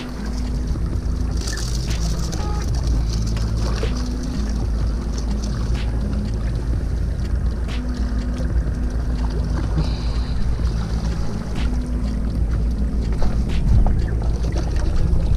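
Wind blowing over the microphone by the sea, a heavy low rumble with scattered light clicks.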